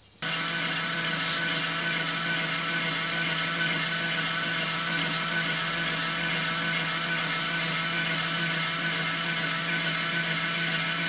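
LEGO Technic electric motor and gear train driving a four-bar linkage at speed: a steady whirring hum with the plastic parts rattling. It starts abruptly just after the opening and keeps an even pitch.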